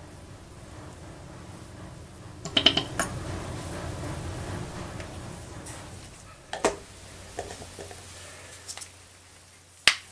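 Light clicks and knocks of paint bottles and cups being handled and set down on a work table: a quick cluster about two and a half seconds in, another about two-thirds of the way through, and one sharp knock near the end, over a low steady hum.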